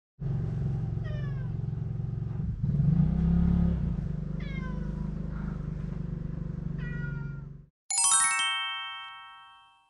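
A cat meowing three times, each call falling in pitch, over a steady low hum. Then comes a bright chime of stacked bell-like notes that starts suddenly, rings out and fades.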